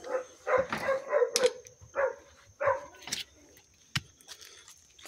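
A dog barking: a quick run of short barks over the first three seconds, then a few sharp clicks.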